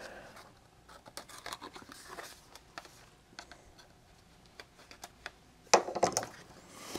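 Thin plastic solder stencil being handled and its protective paper backing peeled off: scattered light scratching and crinkling, with a few sharper crackles about six seconds in.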